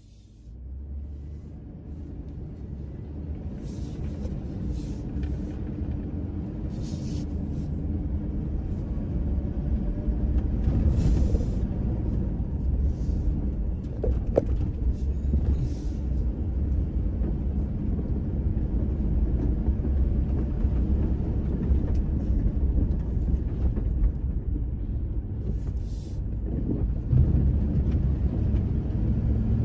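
Toyota Land Cruiser Prado 120's 3.0-litre 1KZ-TE turbo-diesel and drivetrain driving along a rough dirt and sand track, heard from inside the cabin as a steady low drone. It grows louder over the first several seconds, with short rattles from the body over bumps.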